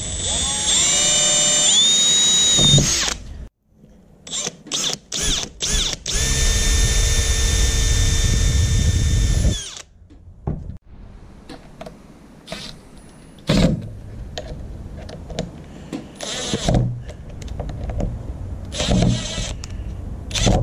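Cordless drill working in the screw holes of a fin's foot pocket. It spins up with a rising whine and runs for about three seconds, then gives several short bursts and a steady run of about three and a half seconds. Quieter short bursts follow near the end.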